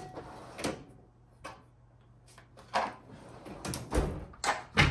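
Clicks and knocks of a set of Allen keys being fetched and handled, sparse at first and coming thicker after about three seconds, with two heavier thumps near the end.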